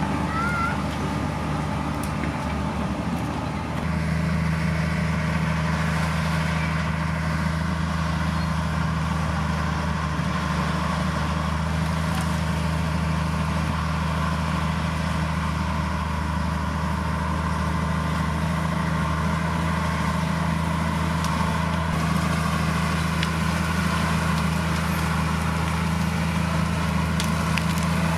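Heavy diesel engine of earthmoving machinery running steadily. About four seconds in, its pitch steps up and it gets a little louder, then holds steady.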